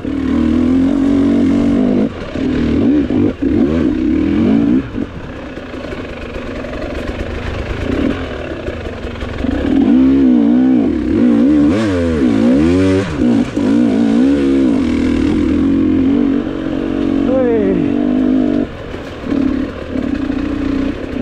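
Enduro dirt bike's engine revving up and down with the throttle, heard close up from the rider's seat; around the middle the revs rise and fall rapidly several times, and later they drop away briefly a couple of times.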